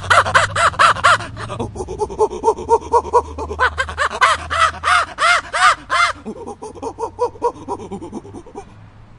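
An animal calling in rapid series, about four or five short calls a second, each rising and falling in pitch, loud in two runs and fading to fainter calls near the end.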